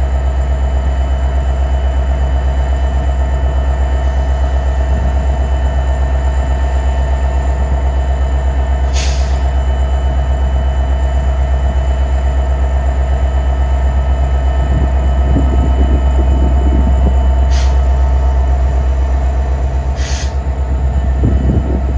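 Metra SD70MACH diesel locomotive idling at the platform with a steady deep drone, then loading up as the train starts to move, the engine growing louder about two-thirds of the way in and again near the end. Three brief high hisses cut in along the way.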